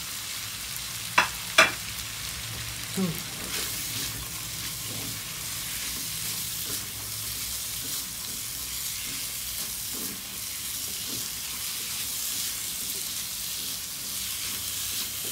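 Stir-fry sizzling steadily in a hot pan as it is stirred, the peppers and onion just added. Two sharp clacks about a second in are the loudest sounds.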